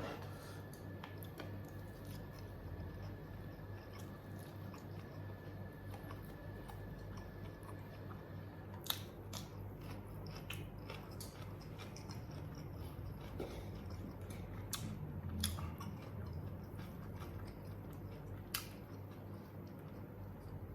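A person chewing and biting mouthfuls of spicy smashed fried chicken (ayam geprek) with rice. A few sharp clicks come about nine, fifteen and eighteen seconds in, over a steady low hum.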